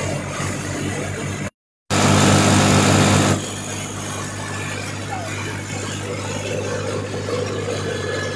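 Tractor-driven wheat thresher running under the engine's steady drone. After a brief cut, a Fiat 480-S tractor's three-cylinder diesel runs steadily, louder for about a second and a half before settling.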